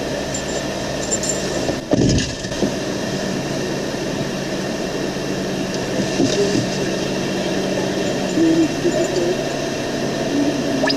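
A steady low hum over constant background noise, with a sharp knock about two seconds in.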